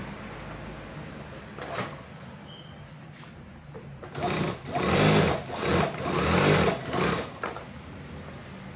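Typical single-needle industrial sewing machine stitching through layers of leather, in several short stop-start runs in the second half, over a steady low hum.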